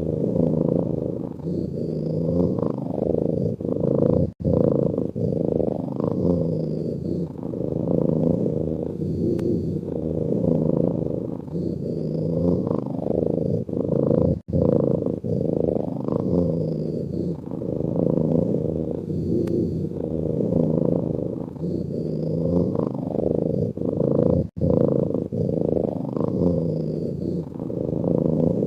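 A sleeping cat snoring, a low rhythmic purr-like rumble that swells and fades with each breath. It cuts out for an instant three times, about ten seconds apart.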